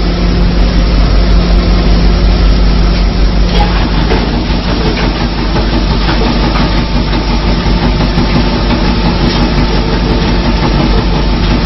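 Sawdust pallet making machine running: a loud, steady mechanical hum with a deep drone underneath, its tone changing slightly about four seconds in.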